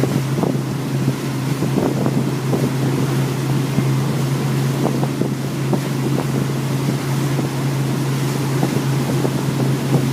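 MasterCraft X45 towboat's inboard engine running with a steady low drone at surf speed, under rushing and splashing water from its wake. Wind buffets the microphone.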